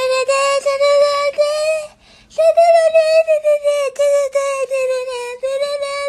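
A single high voice holding one long, slightly wavering note, broken by a short pause about two seconds in.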